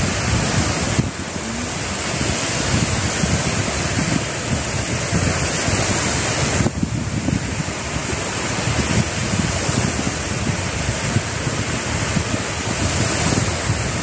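Small sea waves breaking and washing onto a pebble beach in a steady surf, with wind buffeting the microphone as a low rumble.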